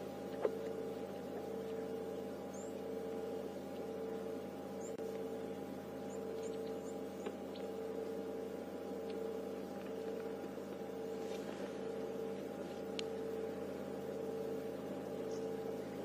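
A steady low hum made of several even tones, one of them pulsing about twice a second, with a few faint, high bird chirps in the first half.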